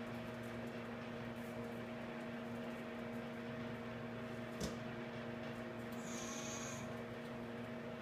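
Steady electrical hum with several fixed tones, like a running appliance or fan. A single click about halfway through, and a brief high-pitched whine about six seconds in.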